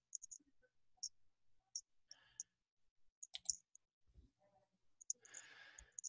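Faint, scattered computer-mouse clicks against near silence, with a brief faint noise shortly before the end.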